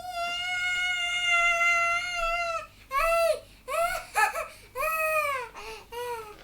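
A child's high-pitched wailing: one long held cry, then a run of short cries that each rise and fall in pitch, a mock crying in play.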